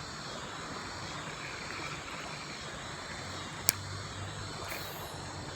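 Steady rush of a shallow river flowing around a wading angler, with one sharp click a little past halfway.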